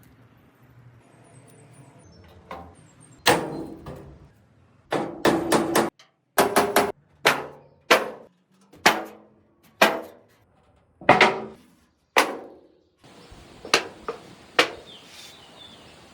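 Hammer blows on metal: about a dozen separate strikes, roughly a second apart, each ringing briefly, typical of straightening a steel panel.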